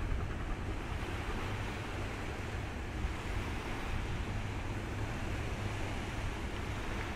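Steady wind on the microphone, a low rumble, over the wash of choppy sea water.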